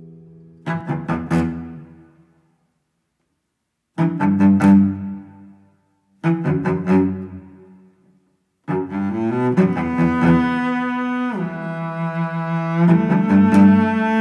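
Background music: three short, low chords with dead silence between them, then a sustained passage of low, string-like chords from about nine seconds in that slides down in pitch partway through.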